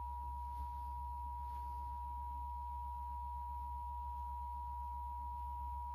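Emergency Alert System attention signal: a steady two-tone beep, two pitches just under 1 kHz sounding together at an unchanging level, announcing the next warning.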